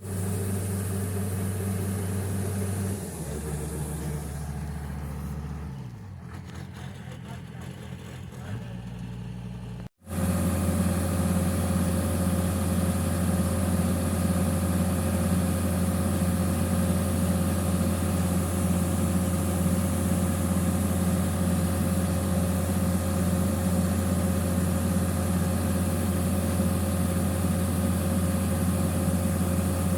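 Engine of a Kubota rice combine harvester running. For the first ten seconds its speed changes in a few steps. After a cut it holds a steady, loud running hum.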